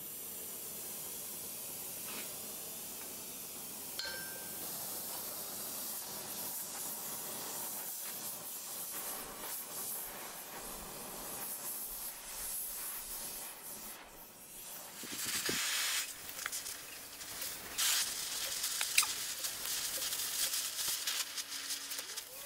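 Gas torch flame hissing steadily as it heats a 3/8-inch iron rod. About two-thirds of the way through it gets louder, with sharp crackling and popping as the red-hot iron throws sparks.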